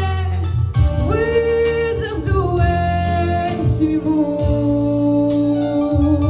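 Pop song: a female voice sings long held notes, sliding between pitches, over a steady bass line.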